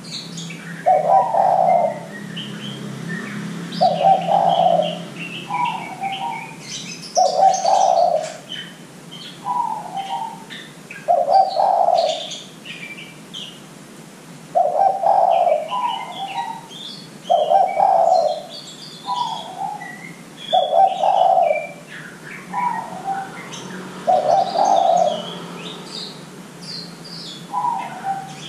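Spotted dove (derkuku) cooing over and over: a deep coo followed by a shorter higher note, repeated about every three and a half seconds. Small birds chirp high in the background, and a faint steady hum runs beneath.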